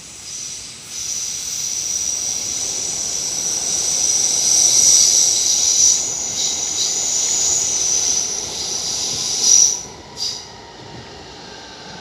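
Red S-Bahn electric multiple unit running past close by, wheels rumbling on the rails with a steady high-pitched squeal above. The sound builds over the first second or so, is loudest in the middle and just before the end, then cuts off suddenly about ten seconds in.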